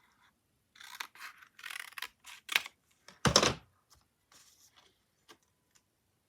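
Paper being handled and cut with scissors: a run of short rustling scrapes, then a louder thump with a rustle about three seconds in, and a few light clicks after.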